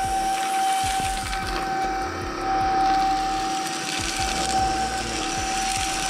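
Greenote GSC50 cordless stick vacuum, with a 200 W brushless motor, running: a steady high whine over a rush of air as its beater-bar head is pushed over carpet, sucking up a pile of dirt.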